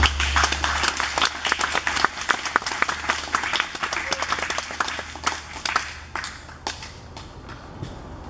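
A small group of seated people applauding, dense clapping at first that thins out to a few scattered claps near the end.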